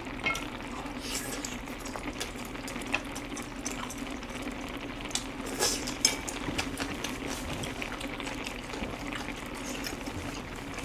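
Pot of chicken rice porridge simmering on its heater, a steady bubbling bed with a low hum, with scattered clicks and smacks of eating and utensils, the loudest about a second in and about five and a half seconds in.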